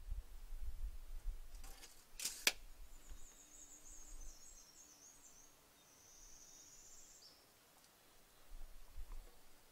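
A couple of sharp wooden knocks about two seconds in, from spruce logs being handled and set in place, then a small bird singing a high, faint trill for several seconds.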